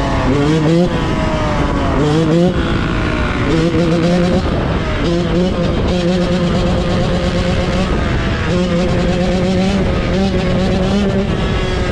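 Yamaha Banshee ATV's two-stroke engine revving: quick rising throttle blips about once a second at first, then held at steady high revs with a couple of short drops.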